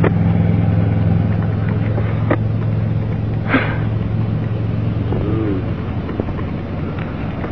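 Steady low engine hum, like a vehicle idling, that weakens after about five seconds, with a few faint clicks.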